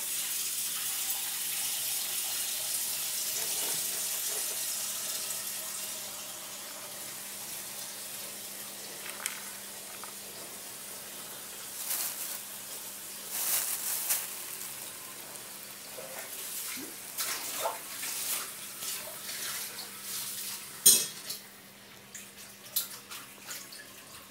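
Water running from a tap, fading away over the first several seconds, then scattered clinks and knocks of dishes and utensils being handled, one sharp knock near the end the loudest.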